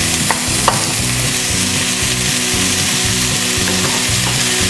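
Noodles and vegetables sizzling in hot oil in a wok, a steady hiss, with two light clicks about half a second in.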